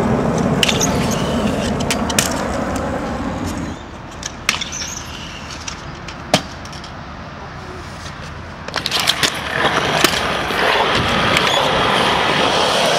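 Small hard wheels rolling over skatepark concrete, loud for the first few seconds and again from about nine seconds on, with scattered clacks and one sharp knock near the middle as a rider lands a jump over a rail.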